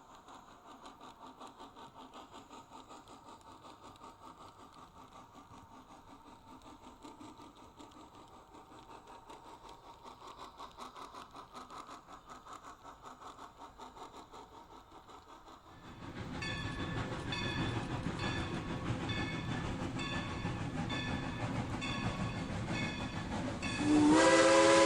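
Steam locomotive sound effects: a steady rhythmic running beat, faint at first, that turns much louder about two-thirds of the way in. A steam whistle blows near the end.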